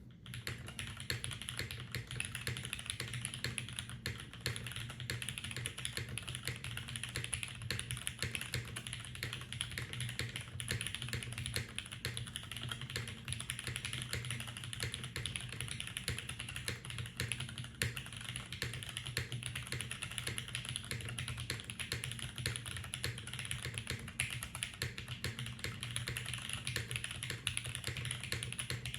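Continuous fast typing on a custom TKL mechanical keyboard with tactile Cherry MX Brown switches, a carbon-fibre top-mount plate and GMK keycaps, the keystrokes following one another without pause. A steady low hum lies underneath.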